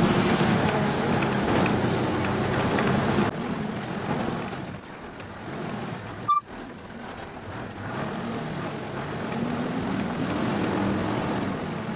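Truck cab interior on the move: the engine running under steady road and wind noise through the open side window, the engine note shifting a little in pitch in the later seconds, with a brief break about six seconds in.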